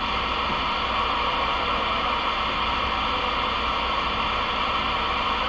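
Galaxy DX 33HML CB radio's speaker giving steady static hiss on an open channel, with no station coming through.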